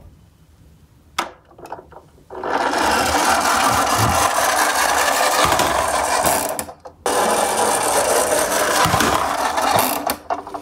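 Toy garbage truck's friction motor whirring as it rolls across the floor, in two long runs with a short break about two-thirds of the way through.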